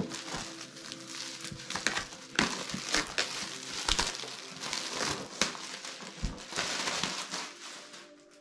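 Plastic shrink wrap being torn and peeled off a cardboard board game box, crinkling and crackling steadily, then stopping just before the end.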